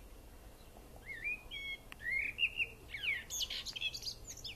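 A small bird singing a short phrase of chirps and warbled whistles, starting about a second in and turning into higher, faster notes near the end.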